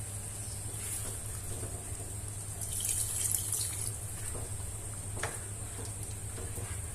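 Water being poured into a pot of fried chicken and potatoes to make the curry's gravy, over a steady hiss from the cooking, louder for about a second around three seconds in. A single sharp tap a little past five seconds.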